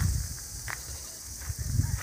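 Footsteps of a person walking on grass, with handling rumble from the moving phone, as uneven low thumps that are strongest at the start and again near the end. A steady high hiss lies underneath.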